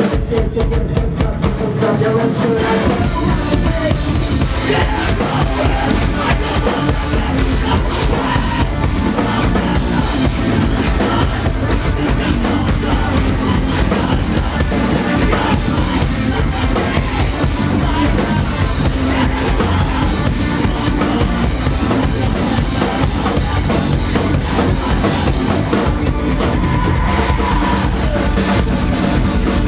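Live band playing at full volume, with the drum kit to the fore: bass drum and snare hitting steadily under the rest of the band.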